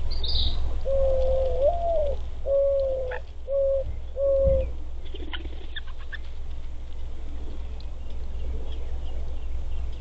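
Mourning dove cooing: one long coo that rises and falls, then three shorter level coos. A brief high chirp comes at the start, with a few faint clicks later, over a steady low rumble.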